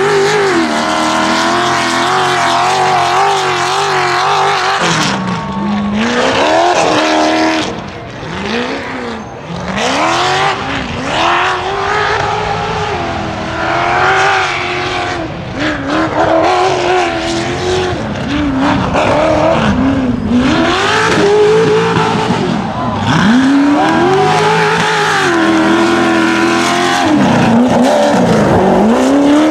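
Off-road race buggy's engine driven hard: revs held high for the first few seconds, then rising and falling again and again every second or two as the driver gets on and off the throttle.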